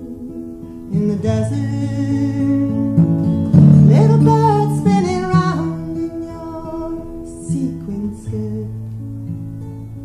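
A woman singing over a strummed acoustic guitar. The voice is loudest a few seconds in.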